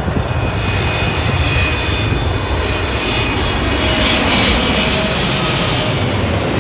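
Qatar Airways twin-engine wide-body jet airliner on final approach with landing gear down, passing low overhead: loud jet engine noise with a steady high whine, swelling to its loudest about four seconds in.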